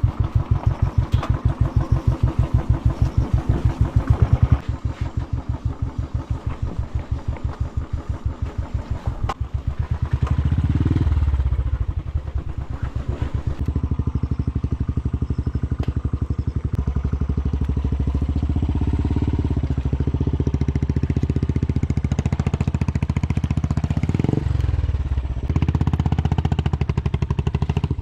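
Motorcycle engine running while riding, at first low in the revs with each firing pulse distinct, then steadier and a little louder from about ten seconds in, with a brief drop and pick-up near the end.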